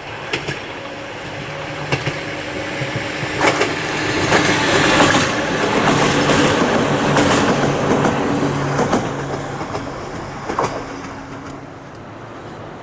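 Ohmi Railway electric train passing close by, wheels clicking over the rail joints; it grows louder to a peak midway, then fades away near the end.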